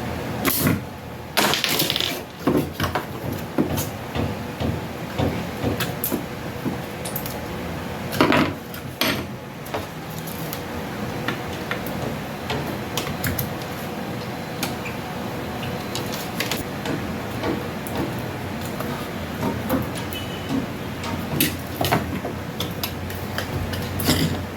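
Small tools and parts being handled during bench work on a microwave's circuit board: scattered irregular clicks, taps and rattles over a steady background hum.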